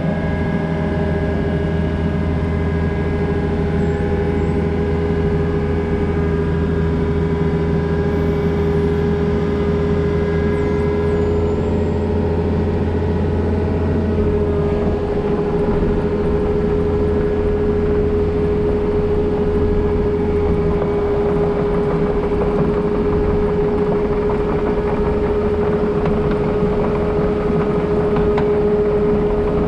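Takeuchi excavator running under load, heard from the cab, as it swings and carries a concrete flare end section hung on chains from the bucket. The engine holds a steady note with a constant whine over it, and the low hum shifts slightly about halfway through.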